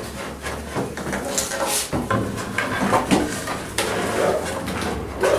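Pine table segments being shifted and fitted together: wood scraping on wood, with several knocks.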